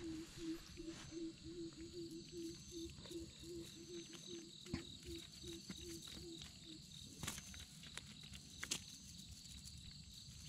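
Evening chorus of frogs and insects: a low call pulsing about three times a second, stopping about seven seconds in, over higher steady insect trilling. Scattered rustles and clicks, with two sharper clicks in the second half.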